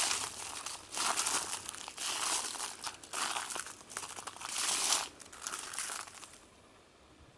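Footsteps crunching loudly on ice-crusted snow and frozen leaf litter, about one step every second, stopping near the end. The glaze of ice makes every step too noisy to walk quietly.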